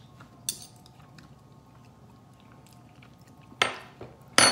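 Faint mouth and lip sounds of people tasting hot sauce off metal spoons. Near the end come two short, sharp noises, the second with a brief high ring.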